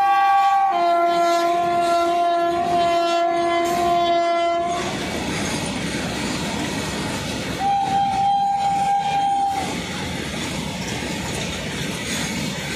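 Electric freight locomotive's horn: one long blast that drops in pitch about a second in and stops near five seconds, then a second, shorter blast about eight seconds in. Under it, loaded box wagons of a goods train roll past with a steady rumble and clickety-clack over the rail joints.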